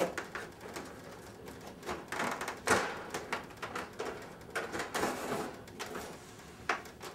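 Single-glazed wooden window sash knocking and scraping in its compression jamb liners as it is pressed free and tilted forward: a run of clicks and rubbing, with the loudest knock a little under three seconds in and another sharp knock near the end.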